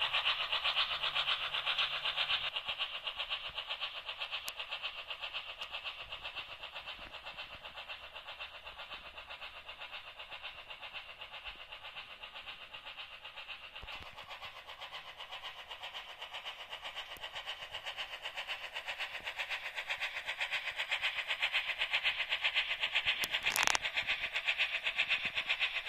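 Märklin H0 model train, a Class T3 tank steam locomotive pulling small passenger cars, running along the track with a rapid, steady clatter of wheels and motor. The clatter fades as the train moves away and grows louder again as it comes back near. A brief sharp noise sounds near the end.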